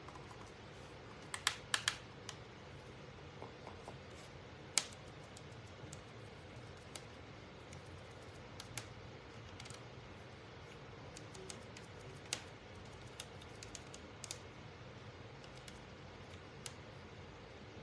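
Small painted wooden cutout letters being picked up and set down on a tabletop: scattered light clicks and taps, the loudest about five seconds in, over a faint steady hum.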